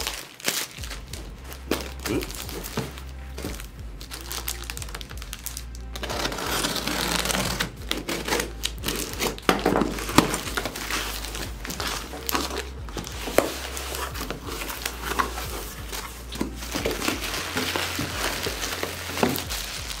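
Cardboard parcel being unwrapped by hand: plastic wrap and packing tape crinkling and tearing, with cardboard flaps rubbing and bubble wrap rustling near the end. The sound is a run of irregular rustles and small clicks.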